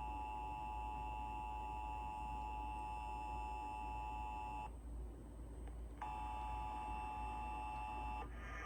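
Emergency Alert System attention signal: a steady, harsh two-note tone (853 and 960 Hz sounded together). It breaks off for about a second a little past halfway, resumes, and stops just before the end.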